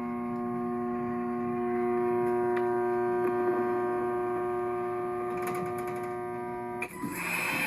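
Fire alarm bells ringing continuously as a steady buzzing ring. About seven seconds in the sound changes suddenly to a rougher, noisier ringing.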